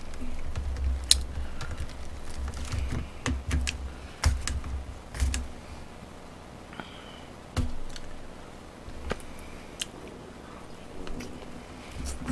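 Irregular clicks and taps of chopsticks against plates and takeout containers while eating, with muffled chewing in the first few seconds.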